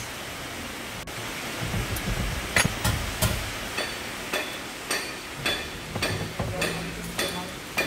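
A series of knocks and clicks, about two a second from a couple of seconds in, from a Mitsubishi Triton's steering wheel being handled and worked loose from the column. A steady hiss runs underneath.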